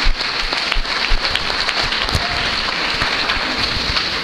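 A large audience of students applauding, a dense, steady clatter of many hands clapping.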